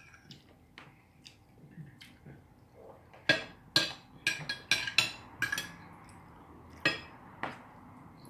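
Cutlery clinking against dinner plates in sharp, irregular clinks. They are faint at first, then a quick run of louder ones comes from about three seconds in, with two more near the end.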